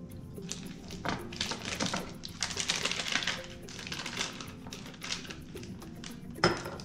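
Thin plastic piping bag crinkling and rustling as it is handled and opened, over quiet background music. One sharp knock near the end, something set down on the counter.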